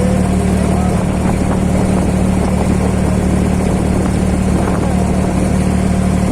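Boat engine running steadily, a loud constant low drone.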